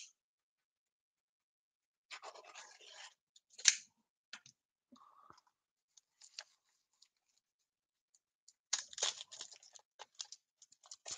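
Foil-wrapped trading card pack crinkling and tearing as it is opened by hand, in short bursts, with one sharp, loud crackle a little under four seconds in and another bout of crinkling around nine seconds.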